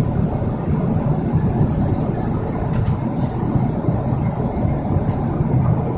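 Steady low drone inside the cabin of a Boeing 777-300ER in flight: the even rumble of engines and rushing air heard from a passenger seat.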